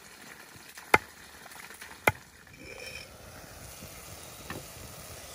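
Two sharp chopping strikes about a second apart, then a fainter knock.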